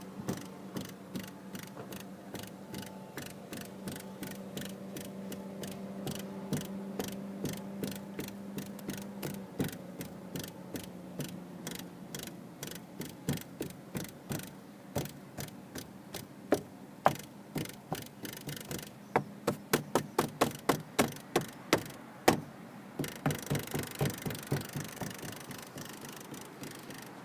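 Repeated taps on a Renault Lutecia (Clio IV) door frame near the hinge, each setting off a buzzing rattle. The taps come in runs, several a second, and are loudest in the second half. The dealer traced the buzz to the door frame rubbing against the inner door trim panel.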